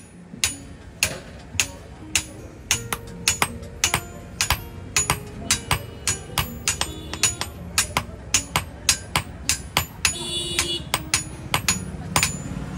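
Blacksmith's hand hammer striking steel on a small anvil in a steady rhythm, about two to three blows a second, each blow giving a short metallic ring.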